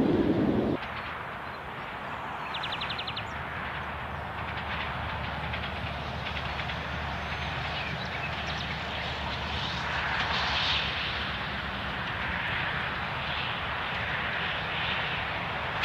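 Diesel engine of a narrow-gauge locomotive droning steadily as it approaches from a distance, growing slightly louder. At the start, a louder low rumble cuts off abruptly under a second in.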